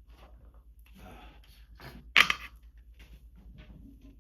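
A single loud allergy sneeze about two seconds in, preceded by a breathy wind-up inhale, with a low steady hum underneath.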